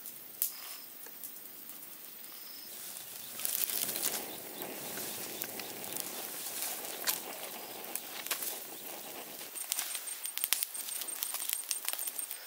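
Wood fire crackling with many sharp pops around bamboo tubes roasting in the coals. A rushing flame noise swells in the middle, and the pops come thick and fast in the last few seconds.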